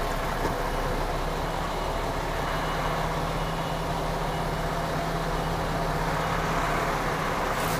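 Heavy goods lorry's diesel engine running steadily at low revs, heard from inside the cab while the truck creeps slowly in reverse.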